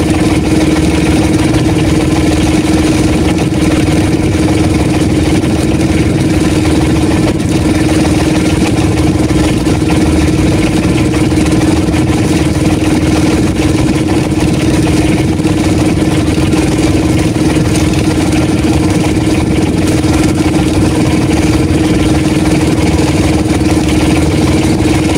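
Motorised outrigger fishing boat's engine running at a steady, unchanging speed: a loud, even drone with a strong constant hum.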